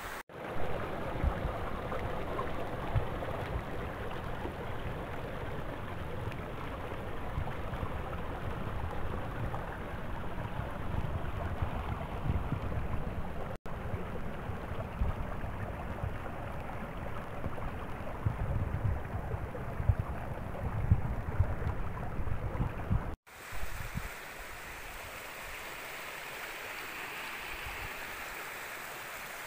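Small spring-fed mountain stream running over rocks, with wind gusting on the microphone. The sound breaks off briefly twice at cuts.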